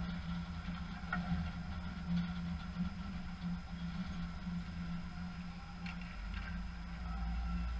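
Ice rink ambience: a steady low machinery hum with a fainter high tone, and a few faint scattered clicks and knocks from play on the ice.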